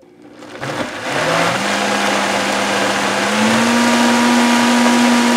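Countertop blender motor starting about half a second in, winding up over the next second and then running steadily, its pitch stepping up a notch again about three seconds in. It is blending tahini sauce thinned with extra hot water after the tahini seized up from the citrus.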